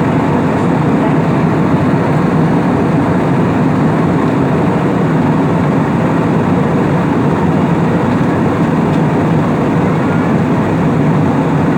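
Airliner cabin noise in flight: a steady, loud rush of engine and airflow noise heard from inside the passenger cabin.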